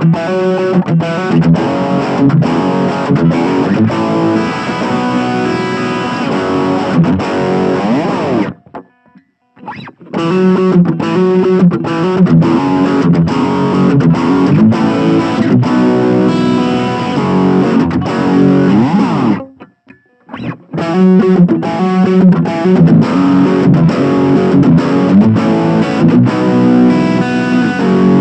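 Gibson Les Paul Standard electric guitar played through a Blackstar Fly 3 mini amp on its overdrive setting: distorted riffs and chords in three passages, with short pauses about 9 and 20 seconds in.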